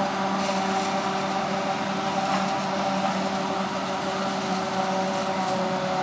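Claas Jaguar 840 forage harvester chopping maize and blowing it into a trailer, its engine and chopping drum making a steady drone with a few held tones, mixed with the tractor hauling the trailer alongside.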